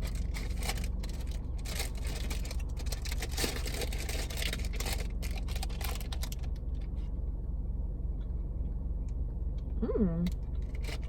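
A large cookie handled and eaten from its paper bag close to the microphone: quick crisp clicks and crackles, dense for about six seconds and then thinning out, over a steady low hum. A short 'mm' of the voice about ten seconds in.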